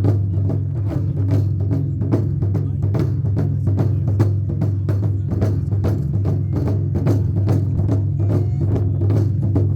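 Drumming: rapid, even strokes, about four or five a second, over a steady low hum.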